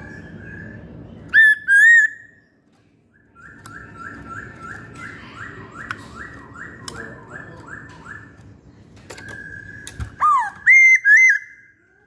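Masked laughingthrush calling: two loud whistled notes near the start, then a run of quieter whistled notes repeated about three times a second, and a loud cluster of whistles near the end.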